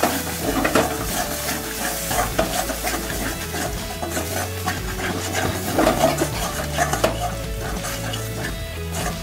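A metal spatula scraping and stirring spice paste around a metal kadai, with the paste sizzling as it fries in a little mustard oil. The paste is at the stage of being fried down (kosha) with turmeric and salt.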